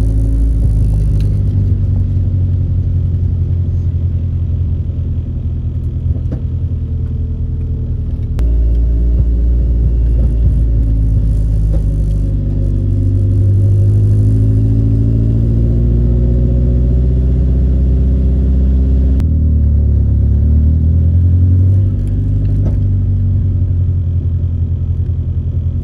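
Nissan 240SX's engine running at low speed, a deep steady drone heard from inside the cabin. Its pitch and level shift a little about a third of the way in and again about two thirds in, as the throttle changes.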